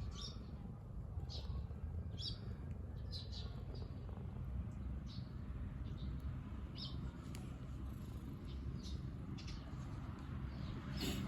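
Small birds chirping: short, high chirps repeating every half second to a second over a steady low rumble.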